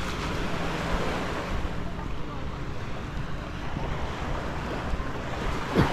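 Surf washing onto a sandy beach, mixed with wind buffeting the microphone, with a brief thump near the end.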